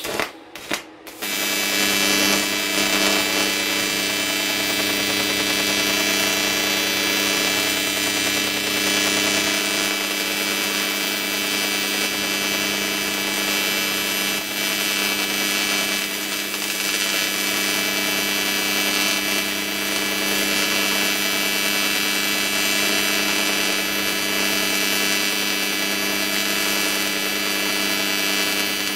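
AC TIG welding arc on aluminium: a steady, loud electric buzz with a fixed pitch. The arc sputters in a few short spurts in the first second before settling into an unbroken buzz.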